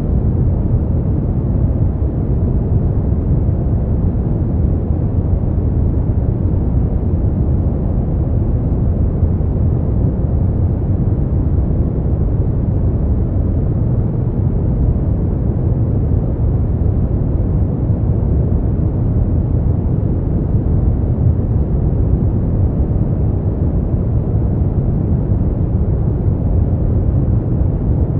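Continuous sleep noise: an even, deep hiss with most of its weight in the bass and little treble, with no change from start to finish.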